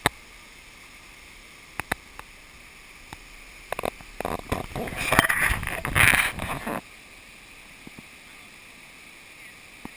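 Steady rush of a waterfall and its rocky stream. From about four to nearly seven seconds in, a burst of loud rustling and knocks covers it.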